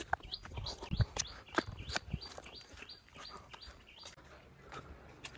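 A small bird chirping: a short, high, rising note repeated steadily about two to three times a second.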